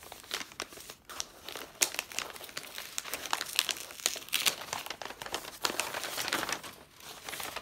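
Kraft paper wrapping crinkling and rustling as it is unfolded and handled, in a run of irregular crackles.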